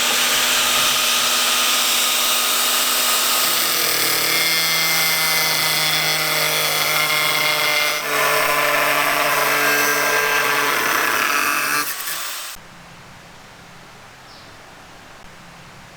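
Electric power tool running at speed, a loud hiss with steady whining tones. It dips briefly about eight seconds in and shuts off about twelve and a half seconds in, leaving a faint steady background hiss.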